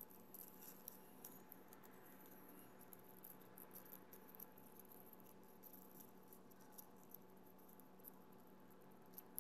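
Faint rustling and crinkling of origami paper being folded and creased by hand, scattered small crackles over a faint steady hum.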